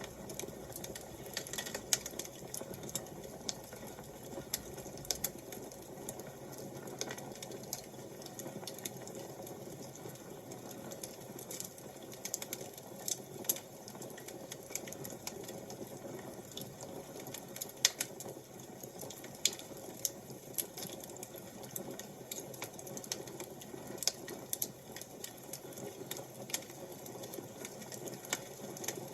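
Fire crackling: irregular sharp snaps and pops over a steady low hiss.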